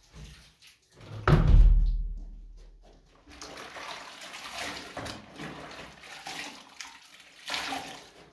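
A PVC window sash being pushed shut, with a heavy thud about a second in and a low rumble dying away after it. Several seconds of irregular rustling and scraping follow.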